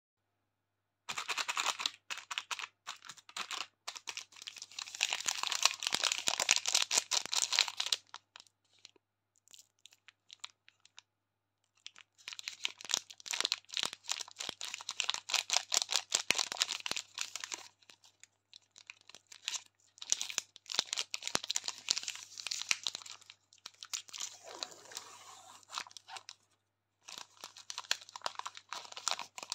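Plastic wrapper of a Snickers bar crinkling and crackling in long spells with short pauses as it is handled and torn open.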